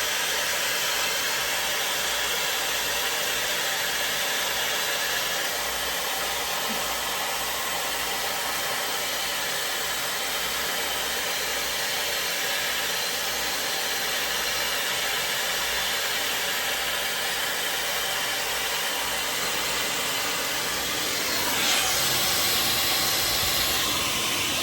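High-speed hair dryer brush (a 5-in-1 hot-air styler) running, a steady rush of blown air with motor hiss. It gets louder and brighter about three seconds before the end.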